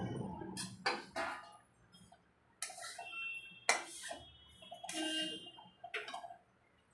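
A steel spoon scraping and knocking against a kadhai as it stirs and scoops crumbly roasted besan, and a steel plate clinking as it is set down beside the pan. It comes as a string of separate scrapes and taps, a few with a short metallic ring.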